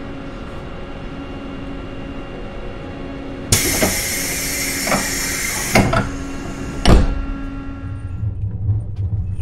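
Inside a JR 651-series electric train: a sudden loud hiss of air about three and a half seconds in as the doors close, then heavy thuds as they shut, the loudest a second later. Near the end a low rumble starts as the train begins to move off.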